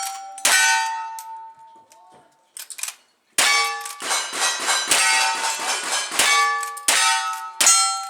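Gunshots with steel targets clanging and ringing on each hit: one strike about half a second in, a lull, then a rapid string of shots and ringing hits from about three and a half seconds on.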